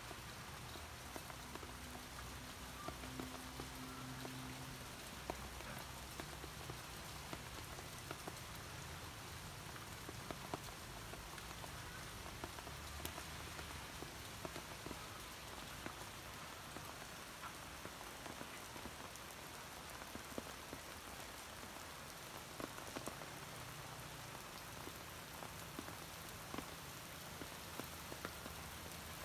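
Heavy tropical rain falling on pavement and parked vehicles: a steady hiss dotted with frequent sharp drop ticks, over a faint low hum.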